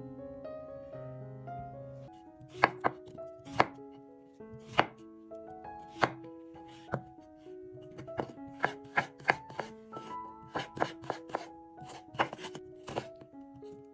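Knife chopping on a cutting board: separate sharp strokes beginning about two and a half seconds in, about one a second at first and then quicker and more irregular, over soft background music.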